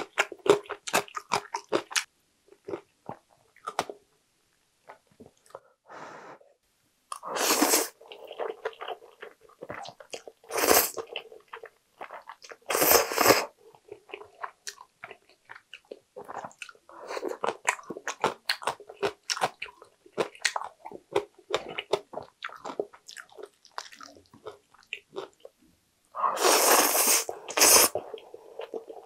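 Close-up mouth sounds of someone eating jjajang ramen noodles: wet chewing clicks throughout, broken by a few louder slurps of noodles. The longest slurp comes near the end.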